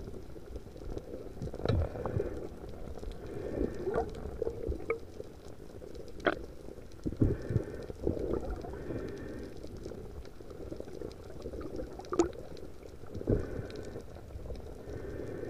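Underwater sound heard through an action camera's waterproof housing: a muffled, bubbling low rumble with scattered sharp clicks and knocks.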